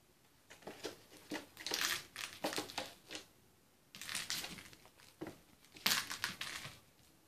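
A kitten playing with a small ball on a wooden floor: several short bursts of scrabbling paws and the ball skittering, loudest about two seconds in and again near six seconds.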